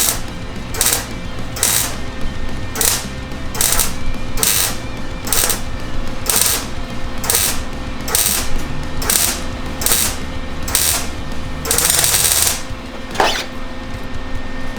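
Small MIG welder stitch-welding a butt joint on sheet-metal truck body panel: short crackling bursts of the arc, one or two a second, with one longer burst near the end.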